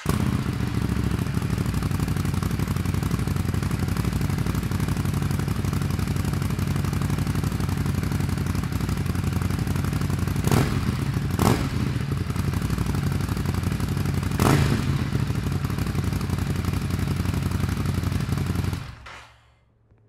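Ducati Scrambler Nightshift's 803 cc air-cooled L-twin idling steadily through a Zard Zuma Euro5 slip-on exhaust. It gives three short blips of the throttle, two close together about halfway and a third a few seconds later. The engine is switched off shortly before the end and cuts out suddenly.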